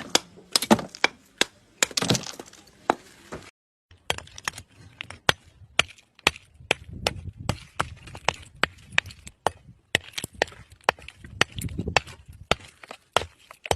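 A hammer striking and breaking lumps of natural mountain clay and chalk: a string of sharp knocks and cracks, irregular at about one or two a second, with a short break about four seconds in.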